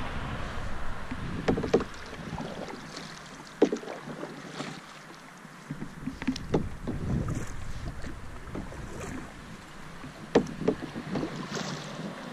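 Canoe being paddled on calm water: irregular paddle splashes and drips, with a few sharp knocks, over a soft wash of water. Wind rumbles on the microphone for the first couple of seconds.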